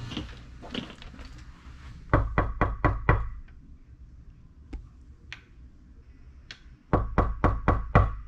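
Knuckles knocking on a hotel room door: two rounds of quick knocking, about six knocks each, some four seconds apart.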